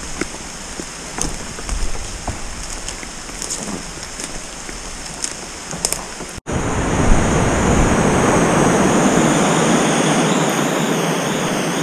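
Rushing whitewater of a creek in flood. For the first half it is quieter, with scattered light taps of rain; after a sudden cut about six seconds in, the rush of the rapids is loud and steady.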